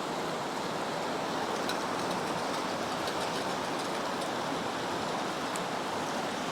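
Fast-moving creek rushing steadily, an even wash of water noise.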